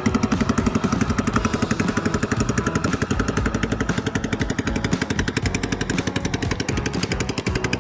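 Small boat engine running steadily at an even speed, its fast regular firing pulse unbroken.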